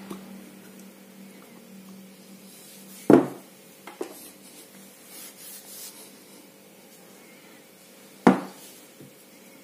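Small hard objects, reel parts or tools, knocked and set down on a work surface: two sharp knocks about five seconds apart, with lighter clicks and handling noise in between, over a faint steady hum.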